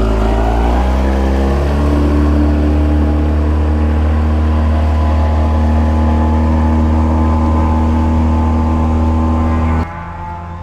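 Small outboard motor accelerating: its pitch climbs in steps for about two seconds, then it runs steadily at high revs. The engine sound cuts off abruptly near the end.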